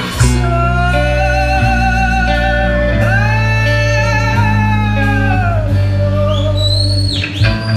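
A live indie blues band playing through the house PA: heavy sustained bass notes under long held, slightly wavering melodic notes. Quick sweeps of pitch up and down come near the end.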